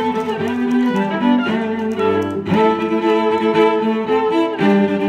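Background music played on bowed strings, sustained notes moving from one to the next every second or two, with clear changes about halfway through and near the end.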